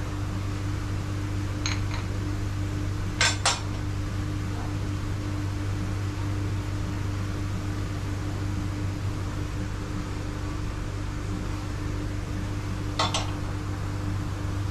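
Steel bars and fittings of a Delta cylinder-head pressure tester clinking as they are adjusted by hand: a light clink about two seconds in, a double clink a moment later, and another double clink near the end. A steady low hum runs underneath.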